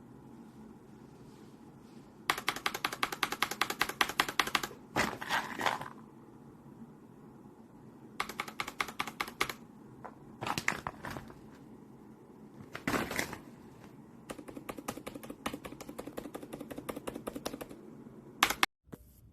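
Outemu silent mechanical keyboard switches being pressed in quick runs, like typing: several bursts of rapid clicks a second or a few seconds long, with pauses between them and one sharper click near the end.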